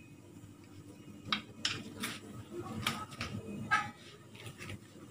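A handful of light, separate knocks and clinks, one of them ringing briefly, like kitchenware being handled.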